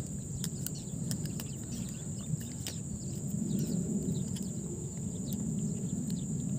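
Steady high-pitched drone of crickets or other insects, with faint scattered bird chirps and small clicks, over a low rumbling noise that grows louder about three seconds in.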